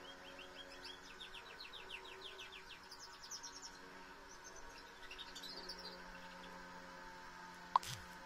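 Female canary in breeding condition singing as if she were a male: quick trills of repeated rising notes, then a higher, faster trill about three seconds in and another about five seconds in. A single sharp click comes near the end.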